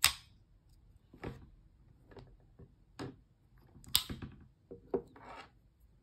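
Handling noise from a plastic Apple USB-C charger and its coiled cable: a sharp click at the very start, then a string of short knocks, rubs and scrapes about once a second on a wooden tabletop.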